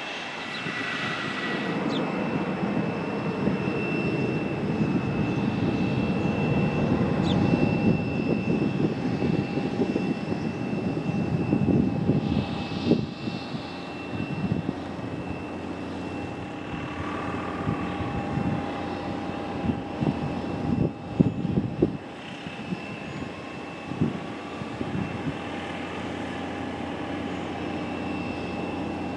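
Boeing 737-300's CFM56-3 jet engines running as the airliner taxis: a steady rumble with a high, even whine. A few gusts of wind knock on the microphone past the midpoint.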